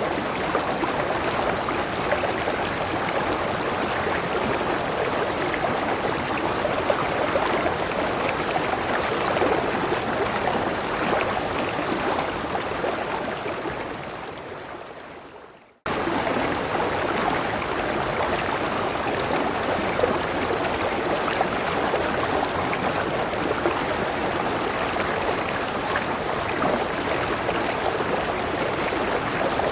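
River water flowing steadily. About three-quarters of the way through the first half, the sound fades out over a few seconds to near silence, then cuts straight back in at full level, like the seam of a looped recording.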